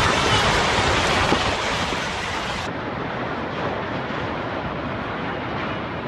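Steady rushing, rumbling noise of a landslide and its dust cloud on an amateur recording, with no distinct impacts. It turns duller about two and a half seconds in.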